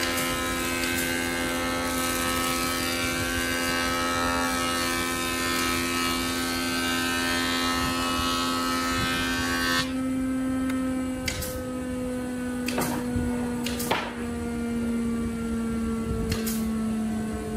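Taiyo jointer planing a board: a steady machine whine under a dense cutting hiss for about ten seconds. Then the cutting stops, leaving the machine's steady hum, which drops slightly in pitch, with a few sharp wooden knocks.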